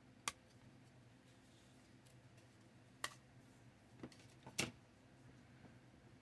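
A few sharp, faint clicks and snaps from handling thin laser-cut plywood model parts as a piece is pressed out of its sheet and set down, the loudest about four and a half seconds in, over a faint steady hum.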